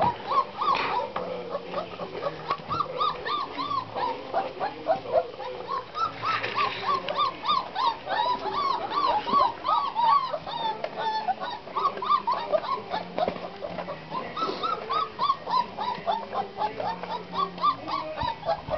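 Black Russian Terrier puppies, about four weeks old, whimpering and squeaking. It is a near-continuous stream of short, high cries that rise and fall, several a second.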